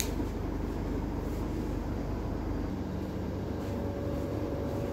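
Steady low background hum and noise with no distinct events; the hum shifts in tone about three seconds in.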